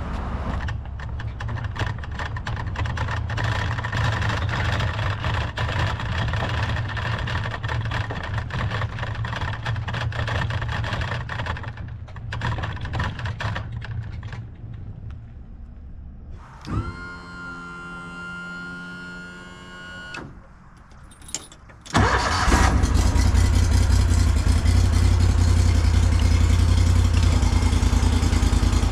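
A vehicle tows an empty boat trailer over a rough dirt lot, the trailer rattling and clanking, for about the first half. After a lull comes a steady electronic tone lasting about three seconds, then, about three-quarters of the way in, the boat's outboard motor starts suddenly and runs steadily and loudly.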